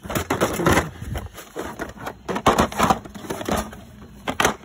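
Hard plastic tool cases knocking, clacking and scraping against each other as they are handled and shuffled in a toolbox drawer, with a couple of sharp clacks near the end.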